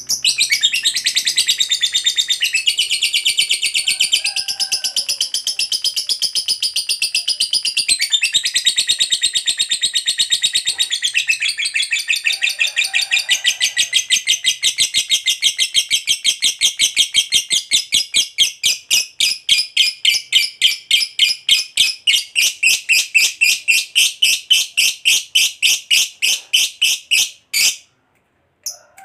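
Lovebird singing its long 'ngekek' chatter: a rapid, unbroken string of high chirps lasting over 25 seconds. It slows to about four chirps a second in its last third, then stops abruptly near the end.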